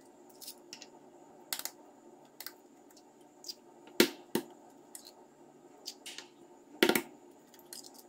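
Eggs being cracked on the rim of a stainless steel mixing bowl: sharp taps of shell against metal, a double tap about halfway through and the loudest knocks about three seconds later, with lighter clicks in between.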